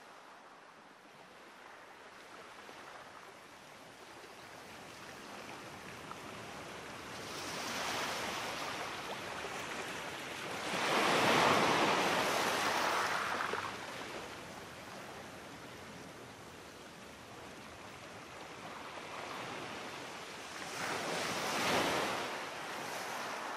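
A soft rushing noise, like surf, that swells and fades in slow waves. It is loudest about eleven seconds in and swells again near the end.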